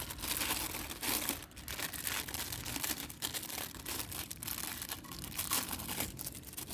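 Sealed plastic bag crinkling and crackling irregularly as it is opened by hand to take out a small speaker tweeter.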